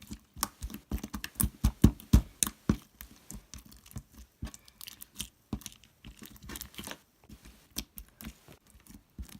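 Crunchy slime being squeezed and poked by hand, giving a fast, irregular run of sharp clicks and pops that are thickest about one to three seconds in.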